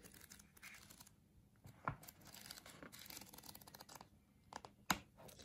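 Pages of a paperback manga volume flipped by hand: a faint papery rustle. Two short knocks of the book being handled, one about two seconds in and a sharper one near the end.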